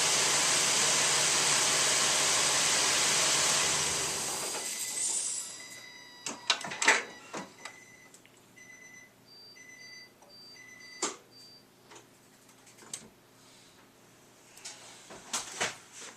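The pickup's engine runs with a loud, steady hiss-like noise for about four seconds, then is shut off and dies away. Next come a few sharp clicks and knocks, and a short series of repeating electronic beeps that sound like a vehicle warning chime.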